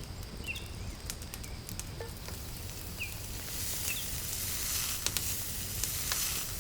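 Butter sizzling and crackling as it melts in a hot pan, the sizzle growing louder about halfway through.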